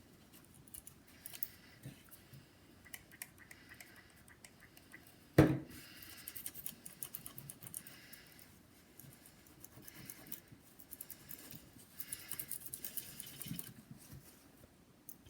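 Paper towel scrubbing old thermal paste off a laptop heat sink: soft scratchy rubbing and rustling in spells, with one sharp knock about five seconds in.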